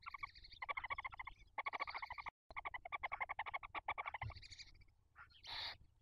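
Barn owls giving fast, rattling chittering calls in the nest box, in bursts broken by short pauses, which stop about four seconds in. A short hiss follows near the end.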